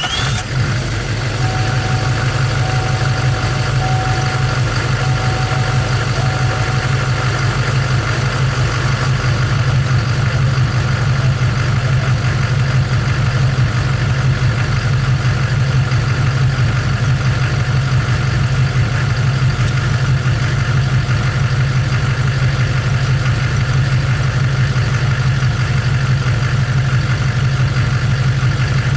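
2008 Chevrolet Silverado 2500HD's engine idling steadily just after being started. A beep repeats about once a second for the first seven seconds or so.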